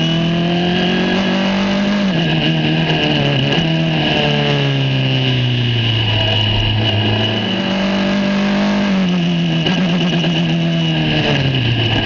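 Onboard sound of an Australian F4 single-seater's Ford 1.6-litre turbocharged four-cylinder engine. The revs climb for about two seconds, drop, then fall away slowly for several seconds as the car slows; they rise briefly again and drop in steps near the end. A steady high whine runs over the engine.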